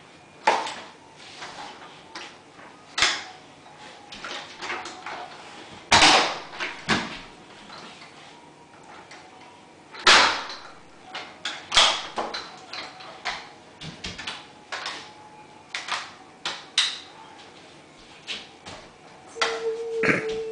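Irregular knocks, clicks and clunks of hard objects being handled, a dozen or more spread unevenly through the stretch, with a steady tone coming in near the end.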